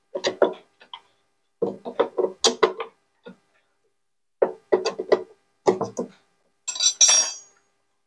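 Hand tool clinking and tapping against the metal drive motor and its bolts as the motor is fastened onto a washing machine's tub. The sound comes in several short runs of clicks, with a longer scraping rattle about seven seconds in.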